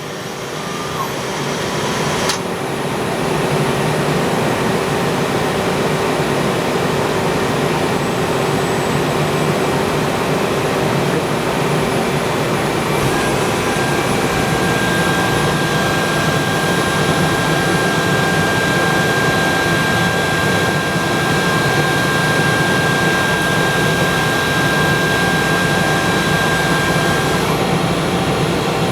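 Steady machine running noise from a 2009 Star SR-20J CNC Swiss-type lathe under power, with several steady whines over a broad hum. It grows louder over the first few seconds, and a high whine comes in about halfway and stops near the end.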